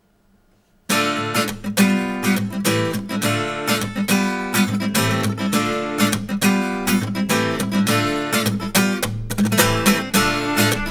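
Acoustic guitar opening a Breton an dro dance tune, strummed and picked in a brisk, even rhythm, coming in about a second in after near silence.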